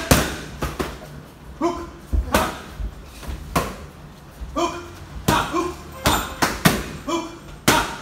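Boxing gloves smacking into leather focus mitts in quick, irregular combinations, with a lull in the middle before the strikes pick up again. Short vocal bursts fall between the punches.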